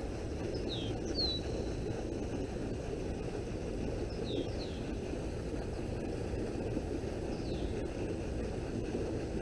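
A bird's short, high chirps falling in pitch, heard several times over a steady low outdoor rumble on the microphone.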